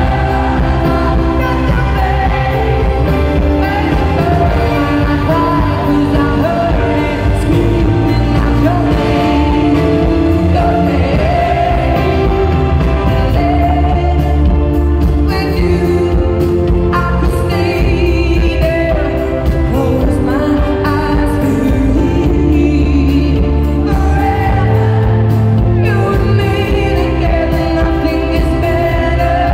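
Live arena performance of a pop ballad: a female lead vocal singing over band accompaniment, steady and loud throughout.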